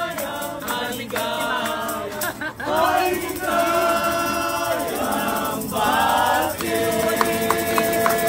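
Restaurant staff singing a Filipino birthday greeting song together in chorus, several voices at once.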